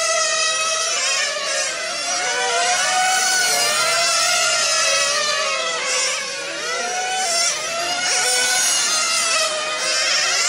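Several 1:8 scale on-road nitro RC cars racing at once, their small two-stroke glow engines whining at high revs. The overlapping engine notes keep rising and falling in pitch as the cars lift off and accelerate.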